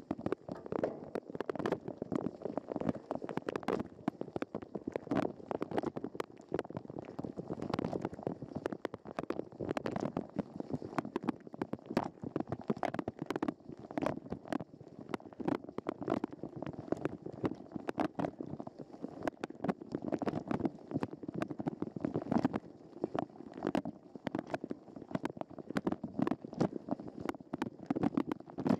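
Dishwasher wash cycle heard from inside the machine through a waterproof camera housing: water sprayed from the wash arms drums and splashes against the case in a dense, irregular, low patter that never lets up.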